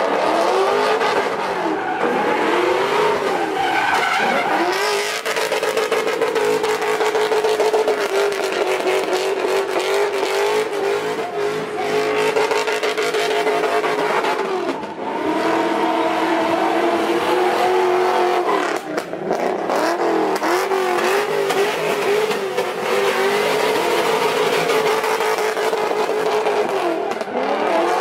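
Car engine revved hard and held at high revs, its pitch swooping up and down, with the tires squealing as the car spins donuts in its own tire smoke.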